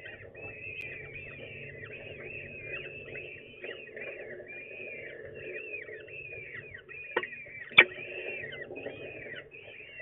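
Peregrine falcon chicks begging with rapid, repeated high chirps while being fed. Two sharp knocks sound about seven seconds in, the second one the loudest thing heard.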